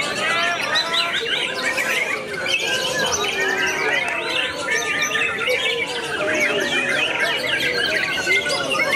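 Several caged white-rumped shamas singing at once, a dense, unbroken tangle of overlapping whistles, gliding notes and quick chirps and trills.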